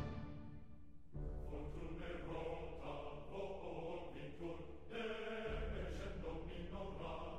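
Background music with sustained chords; a deep bass comes in about a second in.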